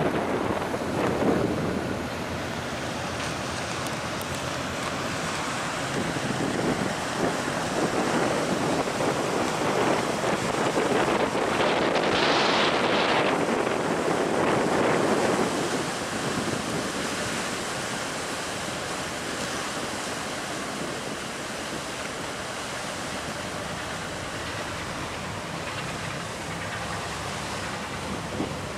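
Wind buffeting the microphone over a steady rush of churned water from a departing car ferry's propeller wash. The wash swells louder for several seconds near the middle.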